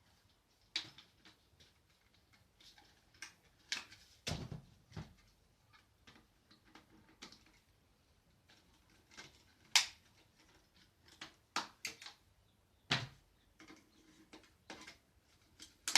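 Faint, irregular plastic clicks and knocks as cordless vacuum cleaner attachments and tubes are handled and snapped on and off, with a duller knock about four seconds in and the sharpest click near ten seconds. The vacuum's motor is not running.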